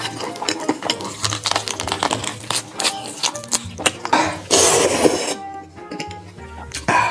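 Close-miked chewing with wet mouth clicks, then about four and a half seconds in a loud slurp of noodles lasting under a second.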